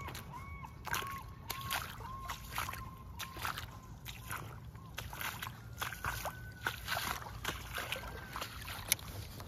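Irregular splashing and sloshing of shallow water. Over it runs a repeated rising-and-falling call, about two a second, that stops a few seconds in.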